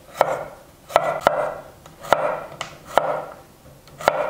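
Chef's knife slicing a fresh cucumber into strips on a wooden cutting board: six sharp knocks of the blade on the board at an uneven pace, each trailing off briefly.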